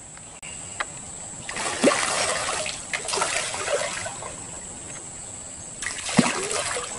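A hooked gourami thrashing and splashing at the surface close to the bank while it is played on the line, in three surges of splashing: about a second and a half in, around three seconds, and again near the end.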